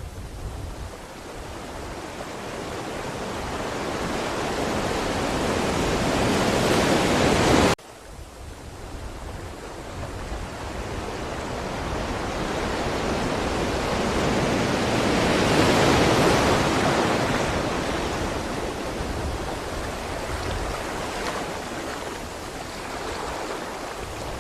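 Ocean surf: a wave's rush builds to a crest and cuts off suddenly about eight seconds in, then a second wave swells and slowly washes back out.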